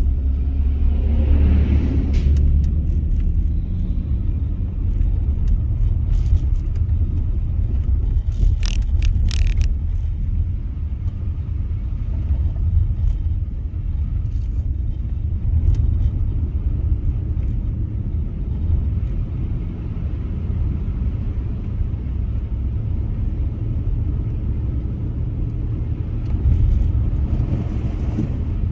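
Car driving on a snowy road: a steady low rumble of engine and tyres, with a cluster of short knocks about nine seconds in.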